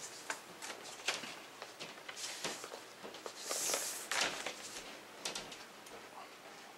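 A vinyl LP being slid out of its sleeve and handled: light rustling and small clicks, with a longer swish near the middle.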